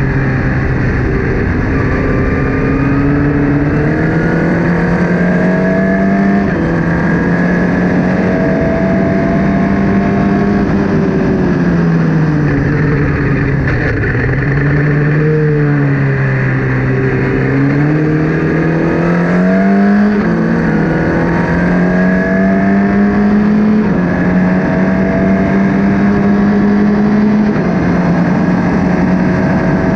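Formula Ford race car engine running hard through the gears. The pitch climbs and then drops at each upshift. About halfway through the revs fall as the car slows, then rise again as it accelerates away.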